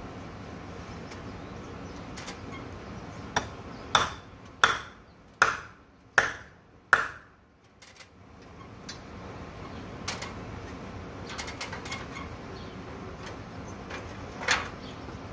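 A run of five sharp, ringing metallic knocks, a little under a second apart, starting about four seconds in, with one more knock near the end.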